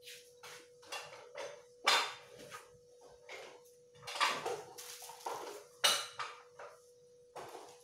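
Irregular knocks and clatter of a toddler handling books and small toys on a tiled floor, loudest in sharp clatters about two, four and six seconds in, over a faint steady hum.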